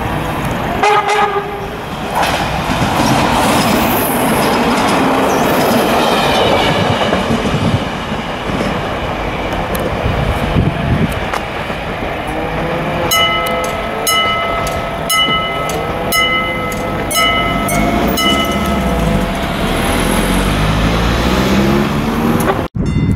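HŽPP series 7 121 diesel multiple unit sounding a short horn blast about a second in, then its engine and wheels running loudly as it approaches. After that a level-crossing warning bell rings in regular pulses, about two a second, for several seconds, while the railcar's diesel engine note rises again and again.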